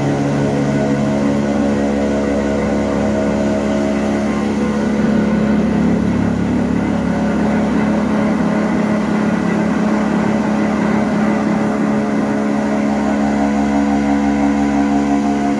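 Flour mill machinery grinding wheat: electric motors, a blower fan and the mill running together in a loud, steady drone with a layered hum.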